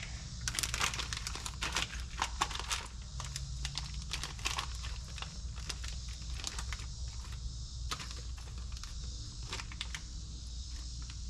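Rummaging through stored shop supplies: many light, irregular clicks, taps and crinkling as items are picked up and moved around.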